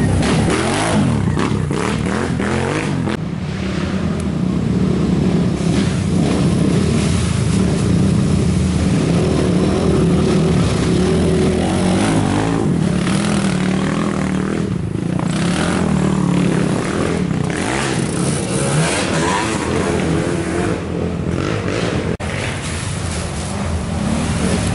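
Racing ATV engines revving hard as several quads pass close one after another, the engine note rising and falling with each pass.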